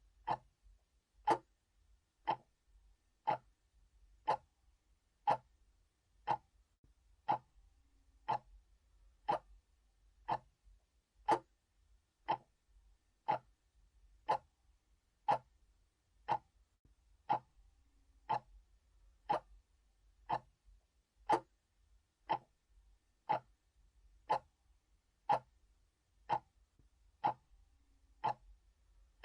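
Analog clock ticking, one sharp tick about every second, steady and even.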